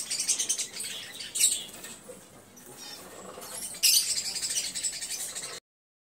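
A flock of small caged parrots, budgerigars and cockatiels, chattering and chirping all at once, louder about four seconds in. The sound cuts off suddenly near the end.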